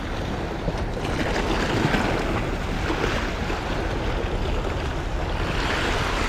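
Waves washing against rocks and wind on the microphone, with the drag of a Shimano Twin Power XD 4000HG spinning reel paying out line as a strong fish runs against it.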